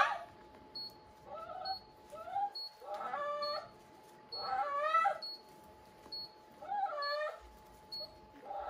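A dog whining and crying while its leg is held and bandaged: a string of about six drawn-out, wavering cries. The first, right at the start, is a loud yelp.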